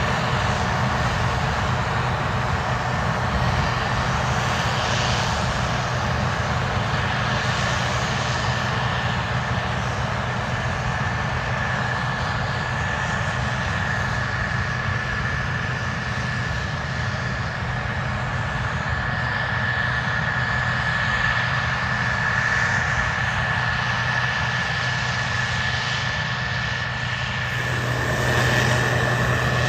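Case IH 2166 combine running steadily while harvesting corn: a continuous engine and machinery drone with a constant high whine. The sound shifts and fills out a little near the end.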